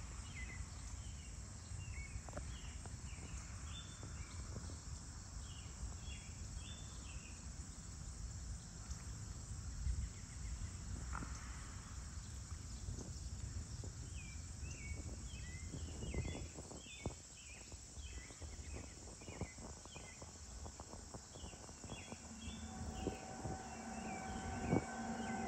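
Rural evening ambience: a steady high insect chorus, with short clustered chirps repeating through most of it and a low rumble of wind. Near the end a distant train becomes audible, its steady tones growing louder.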